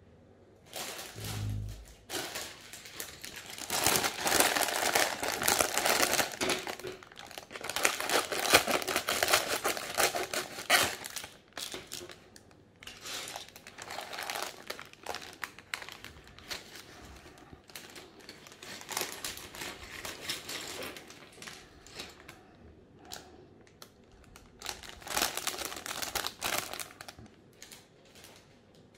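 Clear plastic bag of LEGO parts crinkling as it is handled, in irregular bursts that are loudest in the first half. There is a low thump about a second in.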